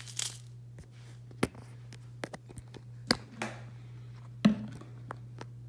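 Scattered light taps and knocks of hands handling things on a stone countertop, about five in all, over a steady low hum.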